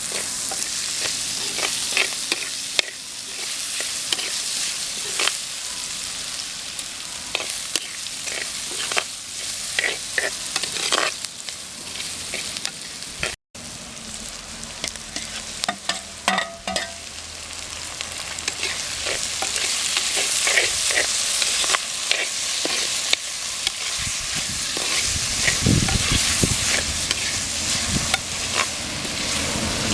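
Onion, garlic and spices frying in hot oil in a pan, sizzling steadily, while a spoon stirs them with frequent sharp clicks and scrapes against the pan. The sizzle cuts out for an instant about halfway and grows louder near the end.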